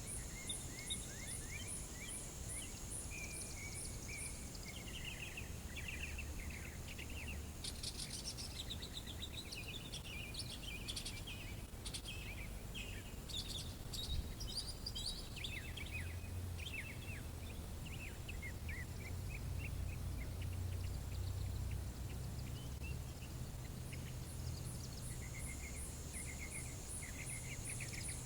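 Outdoor ambience with birds chirping and calling, over steady insect trilling with a high pulsing about three times a second near the start and end, and a low rumble underneath.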